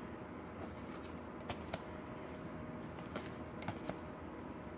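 Tarot cards being handled: a few scattered soft clicks and taps as cards are slid off the deck and laid down on a pile on the table.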